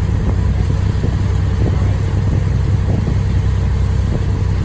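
A vehicle's engine running with a steady low rumble.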